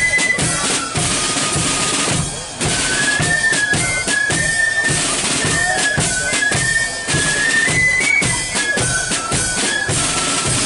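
Marching flute band playing a tune: flutes carry a high melody over side drums, a bass drum and cymbals keeping a steady marching beat.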